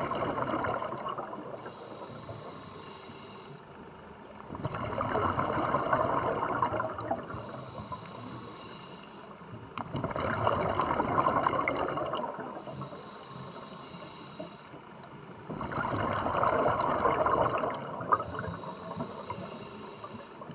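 A scuba diver's breathing through a regulator underwater: slow, regular breaths about every five and a half seconds, each a loud bubbling exhale followed by a hissing inhale.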